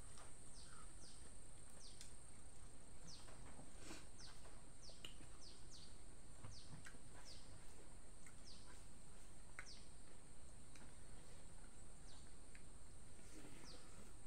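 Birds chirping: short, quick falling chirps, one or two a second and unevenly spaced, over a steady high-pitched whine.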